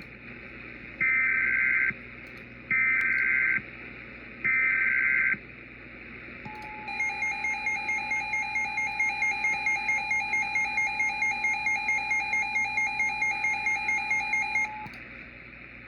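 Emergency Alert System signal: three identical short bursts of digital data tones (the SAME header, sent three times), then about eight seconds of a steady alert tone with a second, warbling tone pulsing over it about four times a second.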